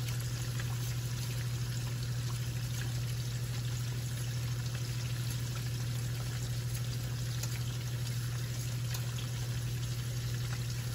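A steady low hum with an even faint hiss over it, and a few faint clicks as a knife slices small hot peppers held in the hand.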